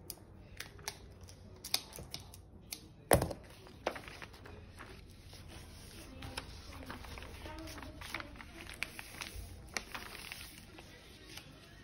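Sheets of paper rustling and sliding as they are handled and smoothed flat on a table, with scattered light taps and one sharp knock about three seconds in.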